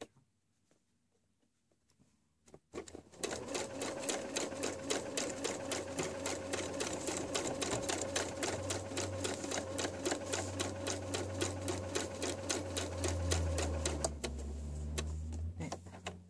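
Electric domestic sewing machine stitching a seam through pieced fabric: it starts about three seconds in with a fast, even run of needle strokes, then eases off and slows near the end.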